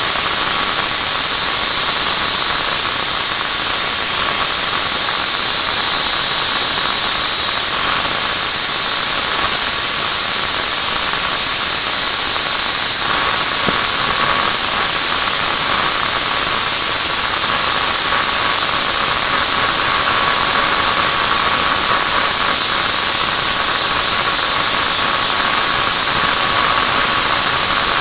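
Electric angle grinder of the Modern brand running steadily at full speed with a continuous high-pitched whine, a small metal ring held against its head to grind it.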